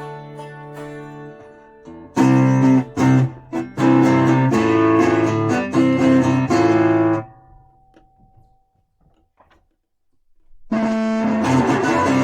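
Guitar played through an amplifier in short passages: a held chord dies away, then loud choppy strummed chords with abrupt stops from about two seconds in, a few seconds of near silence, and strumming starts again near the end.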